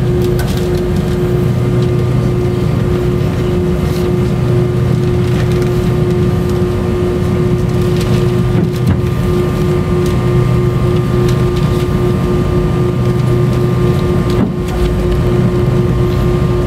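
Airbus A319 cabin sound while taxiing: the jet engines run steadily near idle with a constant low hum and a higher steady whine over a rumble, with a few light knocks.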